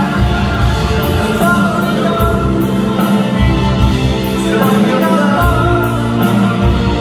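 Live rock band playing: electric guitar and drum kit, with a steady cymbal beat about twice a second and a male voice singing over the band through the PA.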